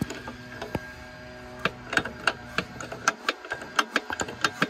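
Old rear wheel bearing of a 1980 Porsche 911 SC being pressed out of its housing: a run of sharp metallic clicks and ticks, a few at first, then about three a second from about halfway through.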